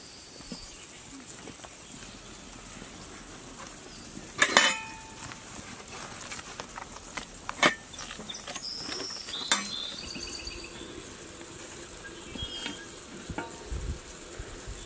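A metal spoon clinking sharply against a steel serving tray and bowl three times, a few seconds apart, while butter is spread over a freshly baked flatbread. A steady sizzling hiss runs underneath.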